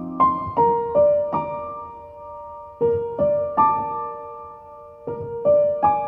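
Slow, gentle background piano music: single notes and small groups of notes struck a few at a time and left to ring out, with short pauses between the groups.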